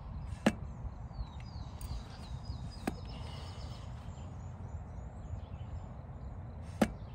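TranzX dropper seatpost on a mountain bike being worked and lowered, giving three sharp clicks spread over several seconds, over a low wind rumble.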